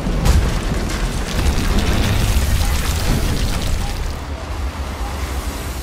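Soundtrack effects of an animated eruption of Vesuvius: a deep, continuous rumble with crackling and hissing over it as the ash cloud engulfs Pompeii. It is loudest in the first half and eases off near the end.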